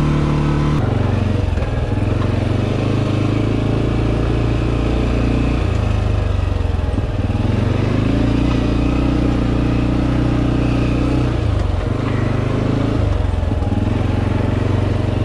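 ATV engine running under way on a trail, its pitch stepping up and down every few seconds as the rider works the throttle.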